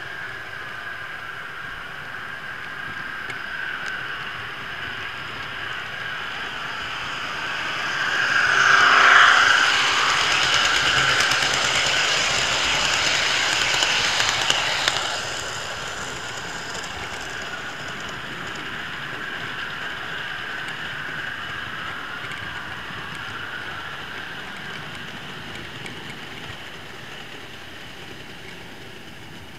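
Model railway train running, heard from a camera wagon riding the track: a steady whir of small wheels on the rails and the locomotive's motor. It gets louder about eight seconds in as a train passes on the next track, and eases off again about fifteen seconds in.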